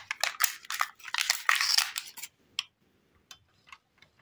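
Plastic film wrap crinkling as it is cut and pulled off a plastic dish with scissors, dense for about two seconds, then a few faint clicks and rustles.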